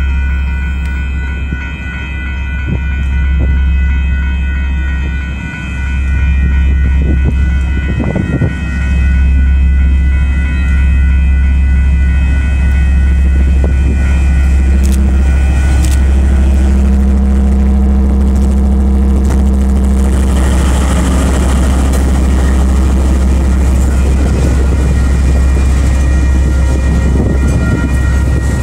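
KiwiRail DL-class diesel locomotive hauling a container freight train over a level crossing: a deep engine rumble that grows louder as the locomotive draws up and passes, then the wagons rolling by. Steady high ringing from the level-crossing warning bells carries on underneath.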